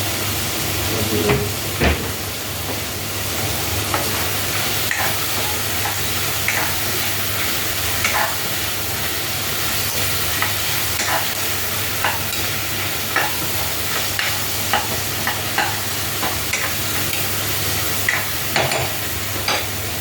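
Garlic, onion and tomato sautéing in a pan, sizzling steadily, with a spatula scraping and tapping against the pan every second or so as it is stirred.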